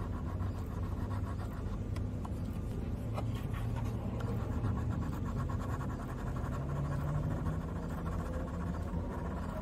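Light scratching and rubbing on paper, over a low steady hum.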